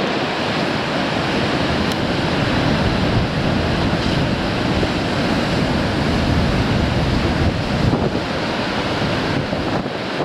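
Sea waves breaking and washing over a rocky shore in a strong wind, a continuous noise of surf with wind buffeting the microphone.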